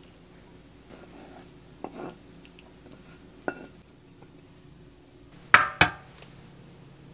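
Cookware and utensils clinking against a ceramic pasta bowl and a frying pan while plating: a few light knocks, then two sharp clanks in quick succession about five and a half seconds in.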